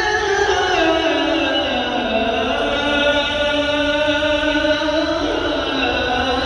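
A voice chanting in long, slow melodic notes that glide down and up, with a steady low rumble beneath.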